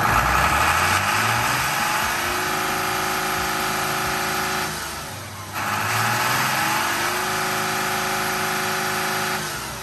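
2003 Isuzu Forward truck's turbodiesel engine revved twice. Each time it climbs, holds high for a few seconds, then drops back, about halfway through and again near the end. The engine pulls up to about 3000 rpm strongly and sounds powerful, the sign of an engine in good condition.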